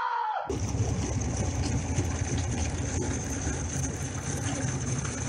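Narrowboat's engine running in a steady low rumble as the boat pushes through thin canal ice, with a light crackle of ice over it.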